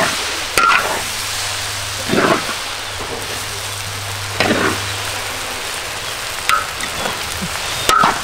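Corn kernels and chopped green onions sizzling in a large wok. A metal spatula scrapes through them about five times, every second or two.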